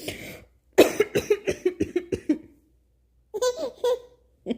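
Coughing: one short cough, then about a second in a rapid run of short coughs, about five a second. A brief high-pitched vocal sound follows near the end.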